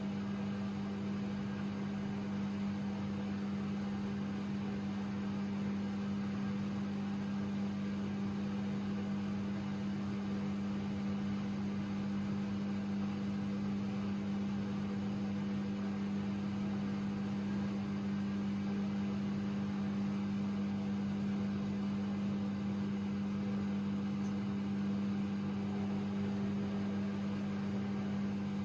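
AEG Lavamat 6610 washing machine running with a steady, unchanging hum.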